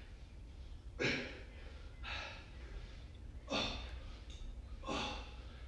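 A man breathing hard while exercising: four sharp breaths about a second to a second and a half apart.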